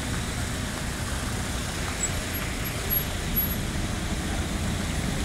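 Steady road traffic noise: a queue of vans, cars and a truck idling and moving slowly along the road.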